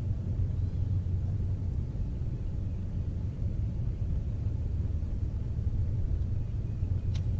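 Steady low rumble with no clear tone, and a single short tick near the end.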